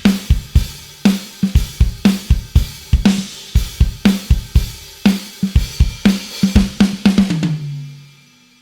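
Sampled acoustic drum kit from the EZdrummer 3 Gospel EZX library playing a busy groove of kick, snare, hi-hat and cymbals. Near the end the playing stops and a last low drum hit rings out and fades away.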